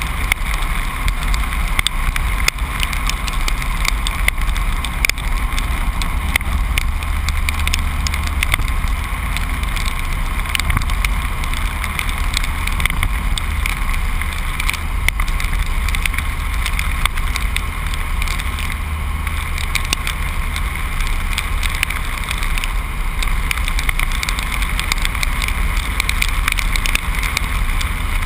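Truck driving along a road at speed: a steady low rumble of engine and road noise, with frequent small clicks and rattles.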